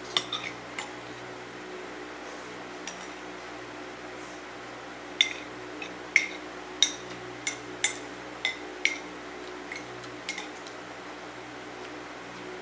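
Cutlery clinking against a bowl of noodle soup while eating: a few clinks at the start, then a run of about a dozen sharp clinks in the middle. An electric fan hums steadily underneath.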